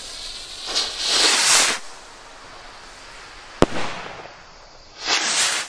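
Firework rockets launching: a hissing whoosh about a second in, one sharp bang of a shell bursting about three and a half seconds in, then another whoosh near the end that cuts off suddenly.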